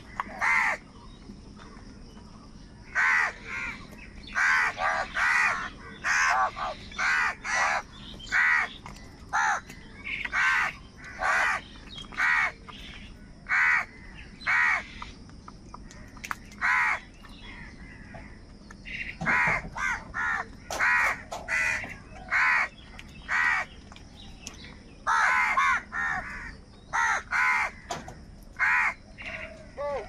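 A flock of house crows cawing: many short caws in quick runs, some overlapping, with a lull of a couple of seconds about halfway.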